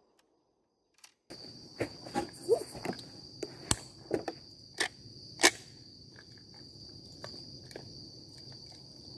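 Silence for about a second, then crickets chirring steadily. Over the first half come about eight sharp clicks and knocks, close by and louder than the crickets, before only the crickets remain.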